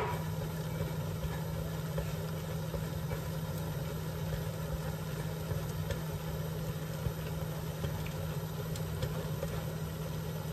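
Steady low mechanical hum at one fixed pitch, with faint scraping as a block of hard cheese is rubbed over a metal box grater.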